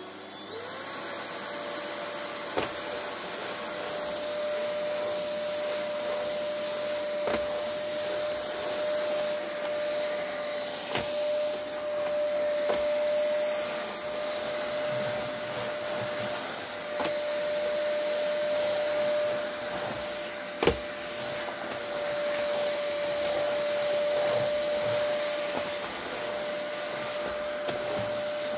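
Vacuum cleaner running: the motor whine rises in pitch as it spins up over the first second, then holds steady over a hiss of rushing air. A few sharp clicks break in now and then, the loudest about two-thirds of the way through.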